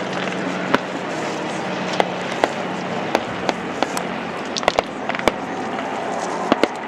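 Scattered blank gunfire from a mock battle: sharp single pops at irregular intervals, a few in quick pairs, over a steady low drone.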